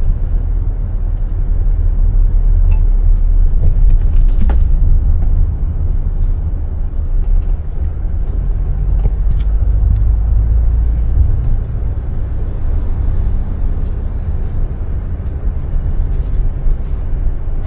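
Steady low rumble of a moving car heard from inside the cabin: engine and road noise, heavier in the first half.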